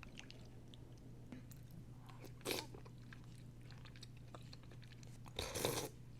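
Faint close-up chewing of a mouthful of Vietnamese three-colour dessert (chè ba màu, with grass jelly, mung beans and red beans), with small mouth clicks and two brief louder moments, about two and a half seconds in and near the end.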